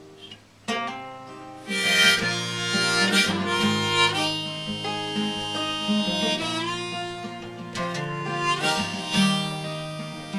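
Harmonica in a neck holder playing a melody over a strummed acoustic guitar. The harmonica comes in loud about two seconds in, after a short, quiet guitar-only moment.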